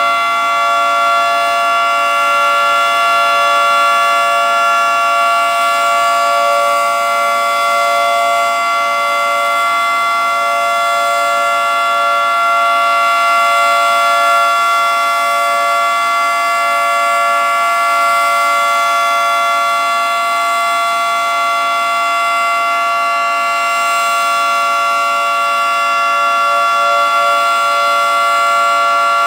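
Federal Signal 2T22A two-tone, 22-port, three-phase outdoor warning siren sounding its steady alert signal: a loud, dissonant two-tone chord held at a constant pitch, with only slight swells in loudness.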